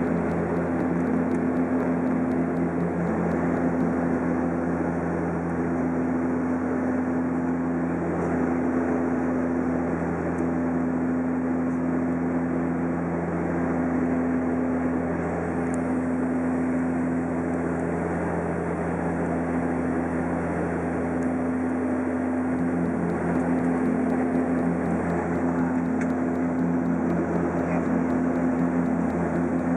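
Turboprop airliner heard from inside the cabin in cruise: a steady drone of propellers, engines and airflow, with a low humming tone that shifts slightly in pitch about two-thirds of the way through.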